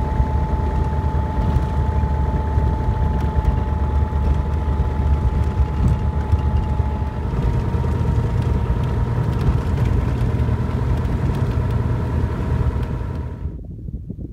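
Jabiru 170 light aircraft's engine and propeller running steadily at low power while taxiing, heard from inside the cockpit: a low drone with a steady whine above it. The sound drops away abruptly near the end.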